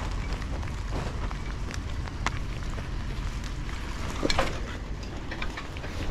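Wind buffeting the microphone while riding a bicycle, with scattered light rattles and clicks and a brief louder sound about four seconds in.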